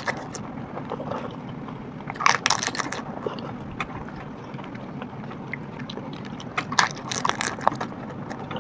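Crisp hollow pani puri shells crunching as they are cracked and bitten, in two bursts of crackling about two and seven seconds in.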